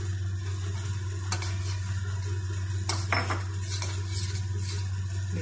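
Metal spoon stirring custard in a steel pan, clinking and scraping against the pan several times, over a steady low hum.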